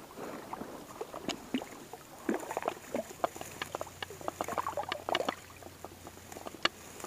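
Small irregular splashes in shallow water and the crackle of dry reeds and grass as a hooked brown bullhead is grabbed by hand and landed at the water's edge.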